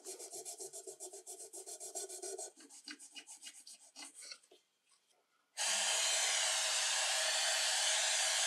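Maroon non-woven abrasive pad scrubbed briskly back and forth over a coated metal saw-blade guard, about five quick strokes a second, turning slower and more irregular after about two and a half seconds. About five and a half seconds in, a powder-coating spray gun starts a steady, louder hiss of air.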